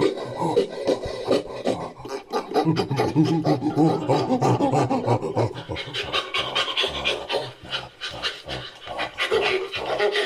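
Made-up ape-creature sound effect, layered from a human voice and orangutan and ape recordings: a continuous run of rapid, short, breathy animal-like calls, growing harsher and higher about two-thirds of the way in.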